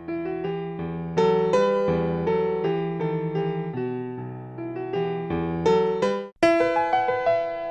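Background piano music: a gentle melody of struck notes that ring and fade, breaking off for a moment near the end before resuming.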